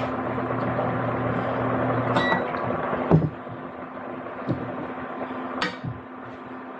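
A few sharp clinks of a utensil against a cooking pot. They sound over a steady electrical hum that cuts off suddenly about three seconds in.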